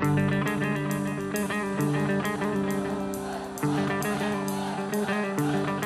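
Live folk band playing an instrumental passage between sung lines: guitar notes over held lower notes and an even percussion beat.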